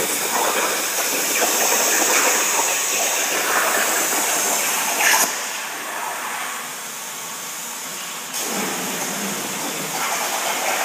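Plasma cutter cutting over a water table: a loud, steady hiss of the arc and air. About five seconds in it stops with a click, leaving a quieter hiss, and the full cutting hiss starts again about three seconds later.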